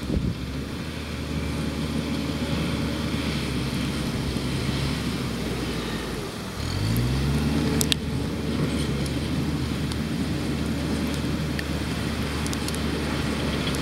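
Komatsu crawler bulldozer's diesel engine working steadily. About halfway through the engine dips briefly, then revs back up with a rising pitch, and a single sharp clank follows.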